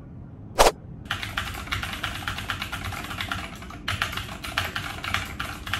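Rapid typing on a MacBook laptop keyboard, a fast run of key clicks with a short pause about two-thirds of the way through. A single loud, sharp snap comes just before the typing starts.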